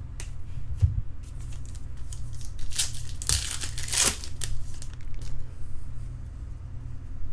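A trading-card pack wrapper being torn open and crinkled, loudest for about a second and a half in the middle, with a few lighter handling rustles and a steady low hum underneath.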